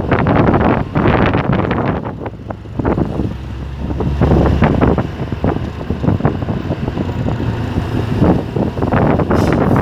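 Hino truck on the move: engine and road noise with gusty wind buffeting the microphone.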